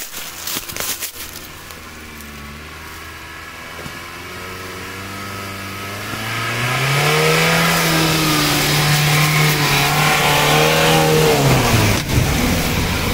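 Engine of a custom-built LuAZ off-road vehicle driving a muddy bog track. It runs at low revs at first, then revs up about six seconds in, holds high revs for several seconds, and drops back near the end.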